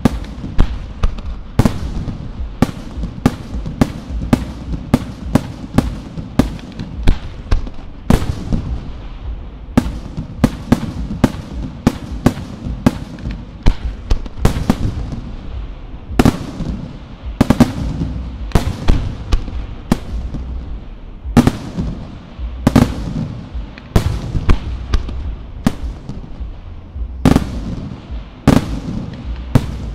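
Aerial fireworks bursting in a rapid, uneven series of sharp bangs, often one to two a second, each followed by a short echo, over a continuous low rumble.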